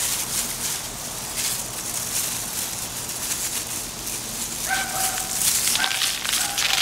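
A dog whining: several short, high, level-pitched whines in the second half. Underneath runs the rustle of hands working loose soil in a container.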